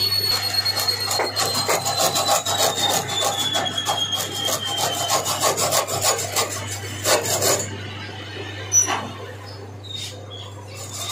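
Hacksaw cutting a steel starter-motor armature shaft held in a lathe, in fast, even strokes that stop a little past halfway. A faint whine falls in pitch under the first half.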